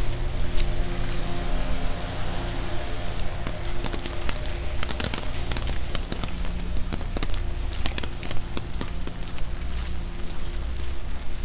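Rain on a wet city street, with the steady low hum of a vehicle engine running close by and a crackle of many short, sharp taps from the falling drops.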